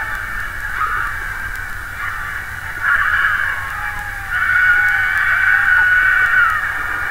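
Arena crowd cheering and screaming, with many high voices overlapping. It swells about three seconds in and gets louder still around halfway through, where one long high scream stands out.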